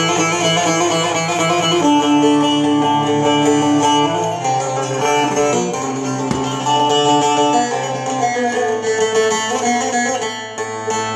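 Bağlama (Turkish long-necked saz) played through its transposer, strumming and picking a melody over a steady drone, with its tonic (karar) set to La (A).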